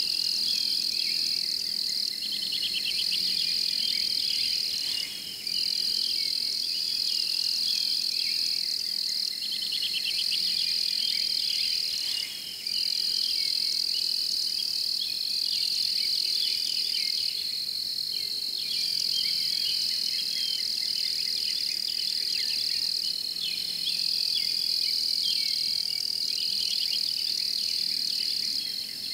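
Chorus of crickets and other insects: a steady high-pitched trill with rapid pulsed chirps beneath it, breaking off briefly twice.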